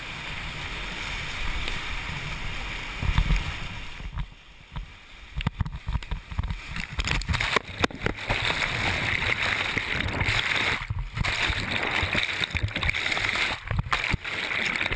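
Whitewater rapid rushing past a kayak, heard on a helmet-mounted GoPro. About four seconds in the kayak flips and the sound turns choppy, with churning water and sudden dropouts while the camera is under water.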